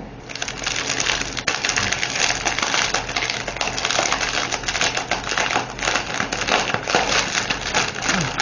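Small plastic bags of resin diamond-painting drills being handled, a continuous rattle of many tiny clicks from the beads with crinkling plastic.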